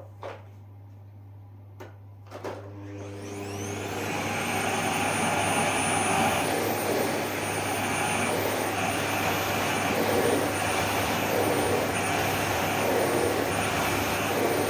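Electrolux SilentPerformer Cyclonic bagless canister vacuum cleaner switched on after a few clicks: the motor spins up with a rising whine and then runs loud and steady, with the turbo brush working on carpet and the sound swelling slightly with each stroke.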